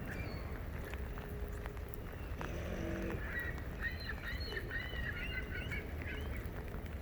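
Seagulls calling several times in quick succession through the middle, over a steady low rumble of wind on the microphone.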